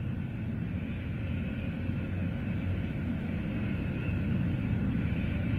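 Jet airliner engines in flight: a steady low rumble with a faint high turbine whine, growing slightly louder.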